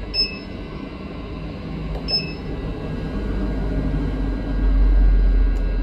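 Hot air rework station running: the steady rush of its blower, with two short beeps about a quarter second and two seconds in. The rush grows louder near the end.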